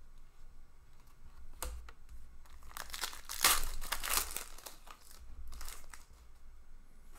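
Plastic crinkling and rustling in short bursts as trading cards are handled, loudest about halfway through, with a short click about a second and a half in.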